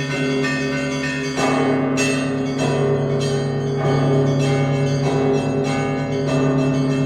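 Russian Orthodox church bells rung in a festal peal (zvon): the deep hum of a large bell sustains under repeated strikes on smaller bells, with a louder stroke about a second and a half in.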